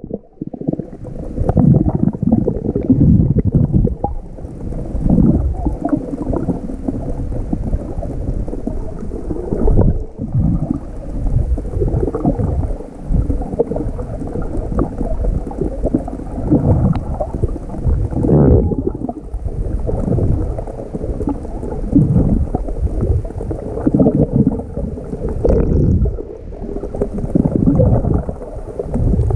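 Muffled underwater noise from a camera carried by a swimmer: water rushing and gurgling around the microphone in irregular low swells with each stroke.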